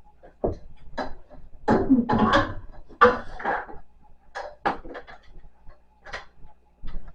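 Clattering and knocking of hard objects being handled: scattered clicks, with a denser burst of clatter in the middle.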